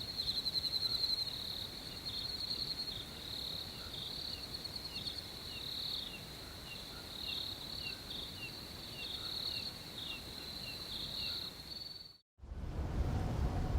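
Crickets chirping in a steady, pulsing high trill, with a fainter, lower short call repeating about twice a second. Near the end the chirping cuts off abruptly and, after a brief gap, a different steady rumbling noise with a faint hum begins.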